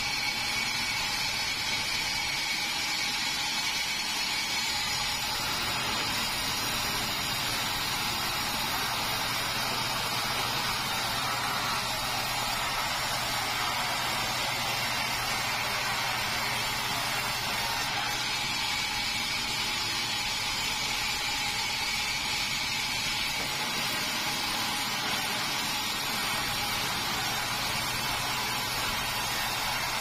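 Band sawmill running steadily with its blade sawing through a red meranti log: an even hiss of the cut over a low, steady motor hum.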